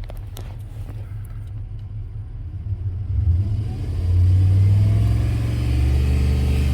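2003 Dodge Ram's 4.7-litre V8 idling, then revved up about three seconds in and held steady at raised revs. The engine is one that has just tested positive for combustion gas in its coolant, a sign of a blown head gasket or a cracked head or block.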